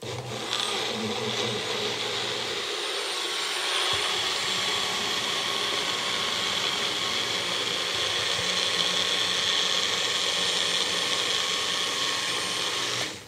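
Magic Bullet blender motor running steadily, blending a thick mix of cream cheese, milk, flour and garlic into a sauce; it stops abruptly near the end.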